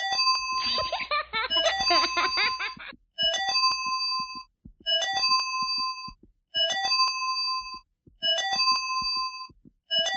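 Synthesized mock emergency-alert alarm tone. It opens with a dense jumble of tones and sweeps, then about three seconds in settles into a chime that repeats roughly every 1.6 seconds: a quick rising run of short beeps followed by a held chord of tones, about five times.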